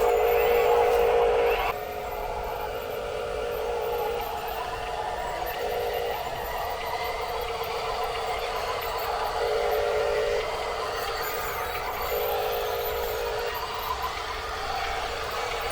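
Small electric motors of radio-controlled construction toys running, with a whine that swells in spurts of about a second every few seconds over a steady whir.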